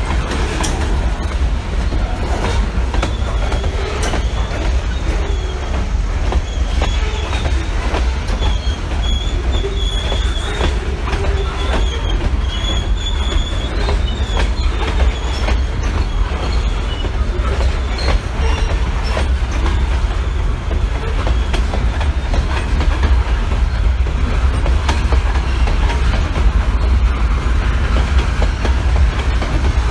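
CSX freight train rolling past: a steady heavy rumble with wheels clicking over rail joints, and a thin high wheel squeal that comes and goes about a third of the way in.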